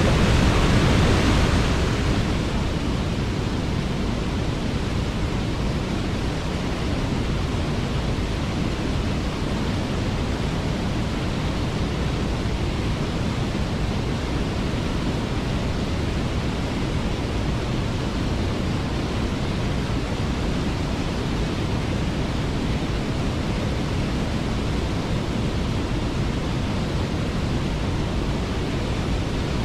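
Waterfall rushing, a steady even hiss of falling water, a little louder for the first two seconds and then level.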